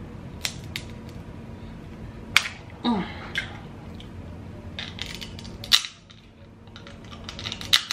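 Dungeness crab leg shells cracked and snapped apart by hand, with sharp cracks at uneven intervals. The loudest come about two and a half seconds in and just before six seconds, and a quick run of small clicks follows near the end.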